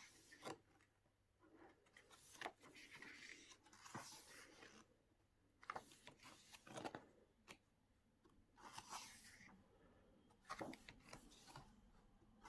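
Faint paper rustling and soft flaps as the glossy pages of a photo book are turned, a few separate handling noises spread over several seconds.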